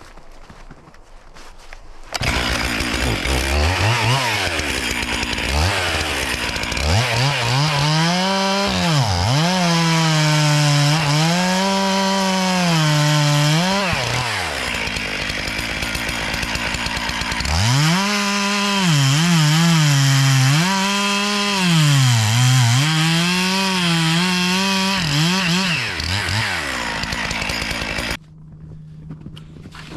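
Stihl MS 441 two-stroke chainsaw revving up and down repeatedly, held at high revs for several seconds at a time and dropping back between, as when sawing through wood. It starts suddenly a couple of seconds in and cuts off suddenly near the end.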